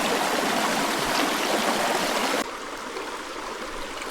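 Creek water running and splashing over rocks in a steady rushing hiss. It drops suddenly to a quieter level a little past halfway through.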